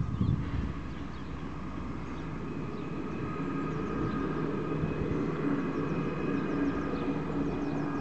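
CP Class 592 'Camello' diesel multiple unit running, its engines a steady drone that grows slightly louder as it approaches. A short gust of wind on the microphone right at the start.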